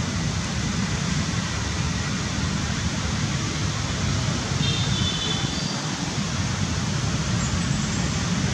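Steady, low rumbling background noise with no breaks, with a few faint high chirps about halfway through.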